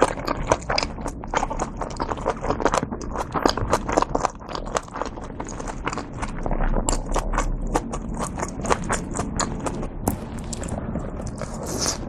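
Close-miked chewing of a fried shrimp dumpling: a fast, dense run of crisp crunching clicks from the fried wrapper.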